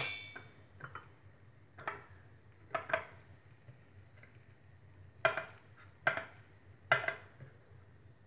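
A steel spoon is set down with a sharp clink and brief ring in a steel spice box. Then come about six soft knocks and taps as raw fish steaks are handled and rubbed with salt and turmeric on a ceramic plate.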